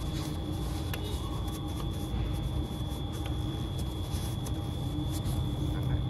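Paper towel rubbing and rustling against the metal bore of a throttle body, in a few faint scrapes, over a steady low background rumble with a faint high steady hum.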